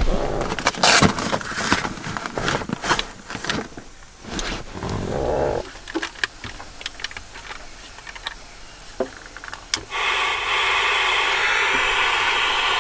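Rustling and clicks of a nylon backpack and its buckles being handled, then a few small clicks as a pocket radio is worked. About ten seconds in, the radio switches on with a steady hiss of static.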